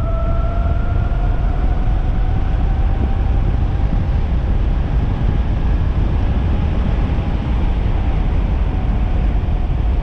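Electric motor of a 72-volt electric bike whining under power, its pitch rising as the bike speeds up over the first few seconds, then levelling off and fading. Heavy wind rumble on the microphone is the loudest sound.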